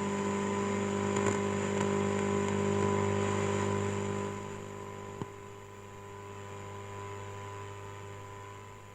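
Ekco U353 valve radio giving a steady mains hum with hiss through its speaker, the hum the uploader puts down to capacitors that need changing. A little under halfway through the hum drops to a lower level, and a single sharp click follows about a second later.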